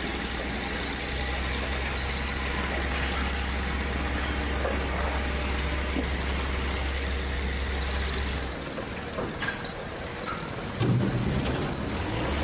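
Engine-driven machinery of repair work running outside, a dense mechanical noise over a steady low drone that drops away about eight and a half seconds in, with louder low knocks near the end.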